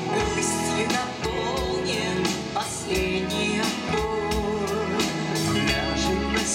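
Live pop-rock band playing with a steady drum beat, electric bass, guitars and keyboard, while women's voices sing over it.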